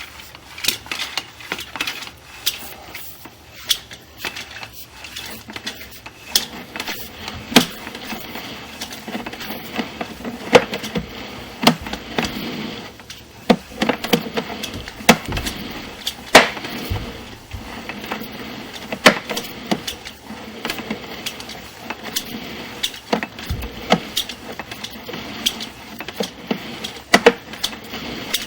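Irregular clicks and knocks, a few sharper than the rest, over a low steady hiss: the handling of a sewer inspection camera and its push cable.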